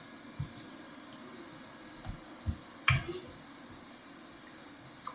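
Quiet room with a few soft clicks and light knocks; the loudest comes about three seconds in.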